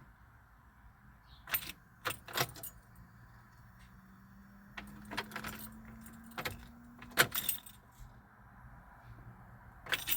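Key ring jangling with sharp clicks as the ignition key is turned in a 2007 Pontiac Grand Prix GT, while a faint hum rises slightly from about four seconds in to just past seven. The engine does not crank, a no-crank condition that turns out to come from a missing PCM fuse.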